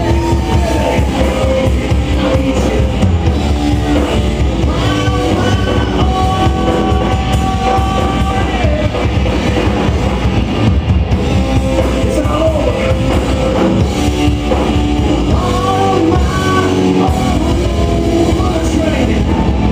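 Live rock band playing loud: a pounding drum kit under a singer's long held notes.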